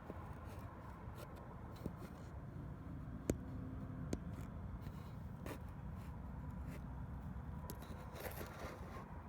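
Mazda 6i 2.3 L drivetrain running with a steady low rumble and a faint steady whine, with scattered light clicks; the noise is from the right-side intermediate shaft carrier bearing.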